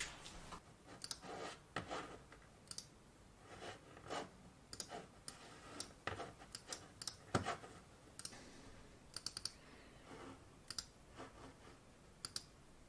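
Typing and clicking on a laptop keyboard: faint, irregular key taps, with a few quick runs of two or three clicks and one heavier tap a little past halfway.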